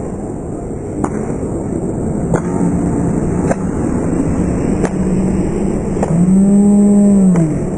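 Small motor scooter engine running nearby at a steady note, revving up and back down about six seconds in, with a few faint clicks.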